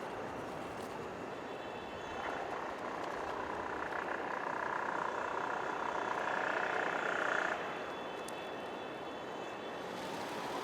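Steady city street traffic noise. A vehicle's whine builds from about two seconds in and cuts off sharply about three quarters of the way through.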